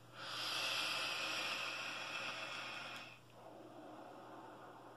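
A long draw on a Horizontech Falcon King sub-ohm mesh tank: a steady airy hiss of air pulled through the tank for about three seconds. It stops suddenly and gives way to a softer, breathy exhale of the vapour.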